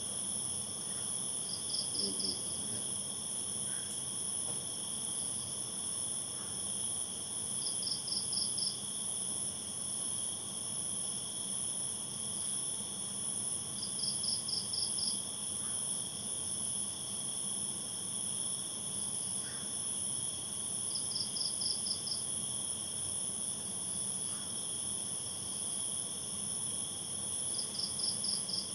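Insect chorus of crickets: a steady high-pitched trilling drone, with a short run of about five rapid chirps from one insect repeating every six to seven seconds.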